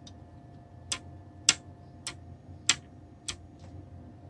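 Small slide switch on a Terasic DE2-115 FPGA board being flicked back and forth by finger: a series of about six sharp clicks, half a second to a second apart.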